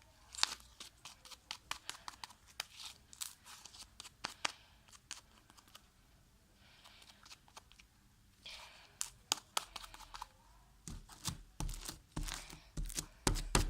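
Freshly made glue slime being mixed and worked, giving irregular sticky clicks and crackles, with a few dull low thumps near the end. It is stiffening from too much baking soda activator.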